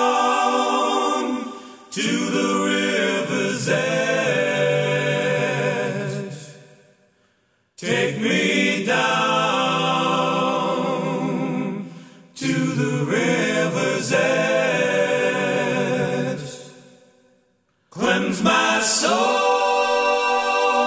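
Unaccompanied voices singing a slow song, a cappella, in long phrases that die away, with two brief silences between them.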